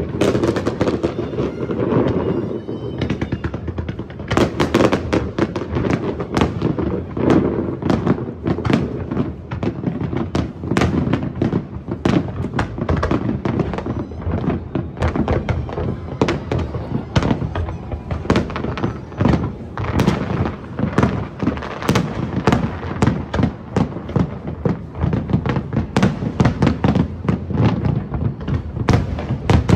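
Aerial firework shells bursting in a dense, unbroken barrage, with bangs and crackles following one another several times a second.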